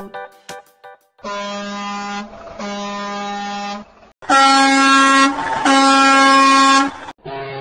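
Truck air horn blasts, each steady in pitch and about a second long: two blasts, then two louder, higher-pitched blasts, and another horn starts near the end.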